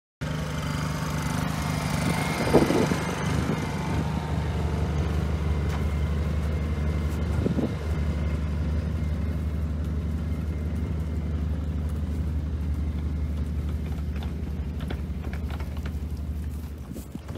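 An engine running steadily at an even idle, with a couple of brief knocks about two and a half and seven and a half seconds in.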